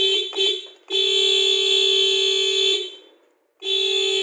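A Honda BR-V's car horn sounds as the horn pad in the steering wheel is pressed: two short toots, a steady honk of about two seconds, then another honk starting near the end.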